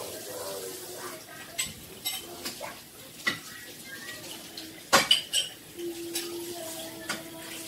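Metal pots, pans and utensils clinking and knocking on a stovetop in a string of separate clatters, the loudest about five seconds in.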